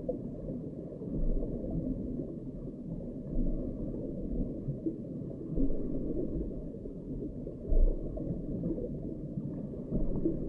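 Muffled, low rumbling water noise heard through an underwater camera submerged beneath lake ice, with a few louder low swells.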